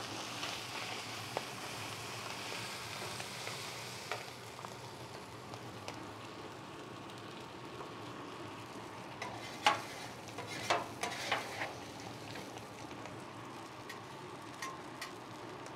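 Salmon and salmon skin frying in butter oil on a hot steel flat-top griddle, a steady sizzle as the skin crisps. Metal spatulas scrape and clink on the griddle top a few times, loudest about ten to eleven seconds in.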